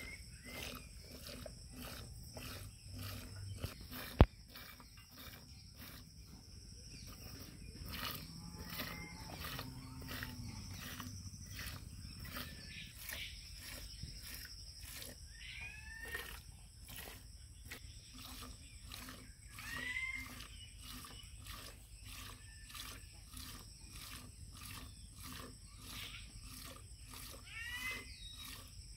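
A cow being hand-milked into an aluminium milk can: squirts of milk hit the can in a steady rhythm, about two a second. Short bird chirps come now and then, a low call sounds partway through, and there is one sharp knock about four seconds in.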